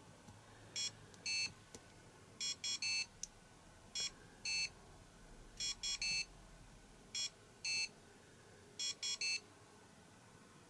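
Electronic pedestrian-crossing guide tones from a model traffic signal. A two-note call is answered by a three-note call, each ending on a longer note, alternating about every second and a half, six calls in all. This is the Japanese cuckoo-style call-and-response crossing sound that tells pedestrians the walk light is green.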